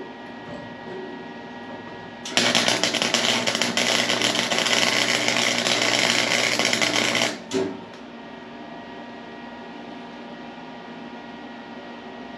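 Harbor Freight welder's arc crackling and buzzing for about five seconds as a tack weld is laid on the go-kart's steel frame tubing, starting and stopping abruptly about two seconds in. A steady hum runs underneath.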